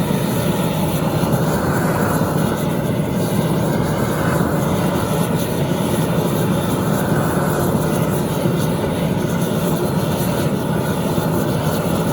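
Gas brazing torch burning with a steady roar while heating a built-up model crankshaft for silver soldering.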